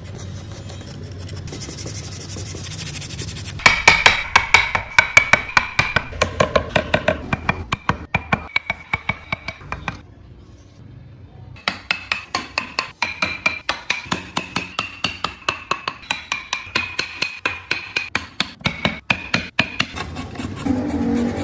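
Quick, even taps of a mallet driving a carving chisel into wood, about four a second, in two runs with a short break between them. A steady rumble and hiss come before the first run.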